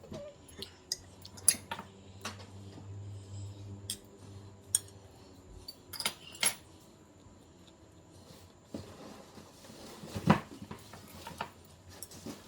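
Eating utensils tapping and clinking against dishes in scattered, irregular clicks, the loudest knock about ten seconds in.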